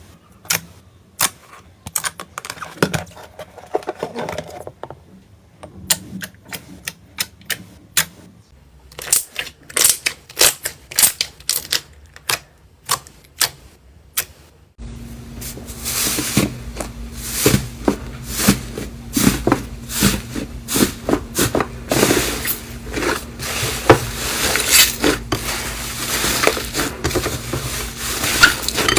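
Slime being squished and pressed by hand: a run of sharp clicks and pops that change in character about eight and fifteen seconds in. The last half is louder, denser crackling with a steady low hum under it.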